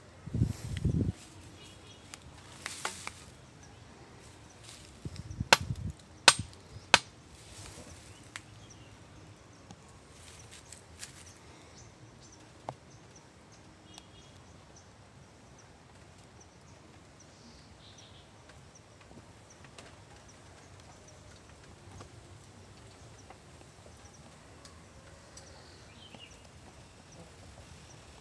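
A few sharp cracks and rustles in dry bamboo litter in the first seven seconds, with low bumping rumbles of the phone being handled, the loudest crack about six seconds in. Then quiet outdoor background with a few faint short chirps.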